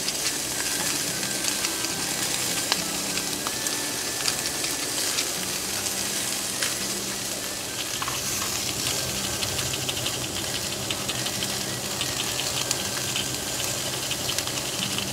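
Beef slices sizzling steadily in a cast iron skillet over a single-burner gas stove, with a continuous hiss and frequent small crackles and pops of spitting fat.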